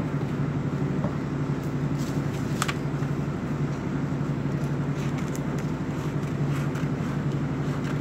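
A steady low hum, with a few short, sharp snips of scissors cutting through a folded sheet of paper.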